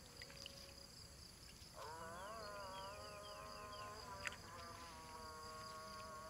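Faint chorus of insects trilling steadily at a high pitch. About two seconds in, a buzzing hum rises and then holds steady. One sharp click is heard a little after four seconds.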